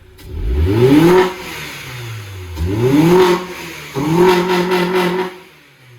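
Honda Prelude's four-cylinder engine revved three times, its pitch rising with each throttle blip and falling back toward idle. The last rev is held high for about a second before dropping.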